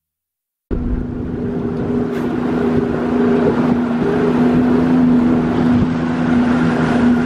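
A small aluminium boat's engine running steadily at low speed, a continuous hum with wind on the microphone, starting suddenly less than a second in.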